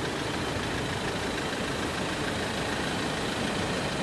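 Steady mechanical running noise, even and unbroken, as from an idling engine or machinery on the assembly floor.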